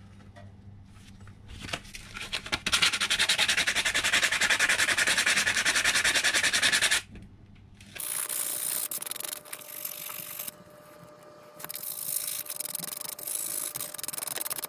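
Sandpaper rubbed by hand over a metal VP bicycle pedal cage plate in quick back-and-forth strokes. The loudest spell comes a few seconds in and stops suddenly. After a short pause the rubbing resumes in quieter stretches.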